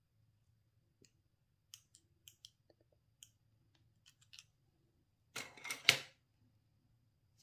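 Light clicks and taps of small plastic toy kitchenware as a toy spoon is handled and set down by a plastic plate, followed about five and a half seconds in by a brief louder rustle that ends in a sharp click.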